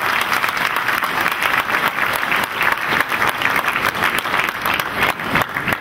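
Large seated audience applauding: many hands clapping densely at an even level.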